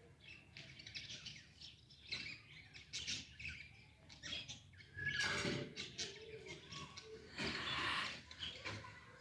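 Small birds chirping in many short, scattered calls, with two louder rushes of noise about five and seven and a half seconds in.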